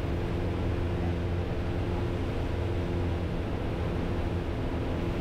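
Piper Comanche's piston engine and propeller droning steadily in cruise at about 2600 RPM, heard inside the cabin, while the fuel mixture is leaned out toward the point where the engine begins to run rough.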